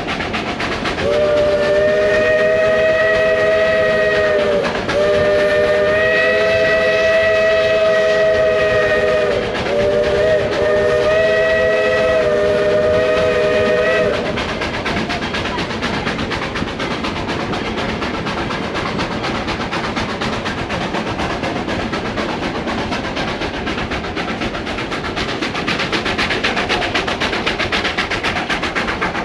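Locomotive sounding three long blasts of a multi-note chord whistle, each about four seconds, the pitch sagging slightly as each blast ends. After that the train keeps running, with a steady rumble and rail clatter.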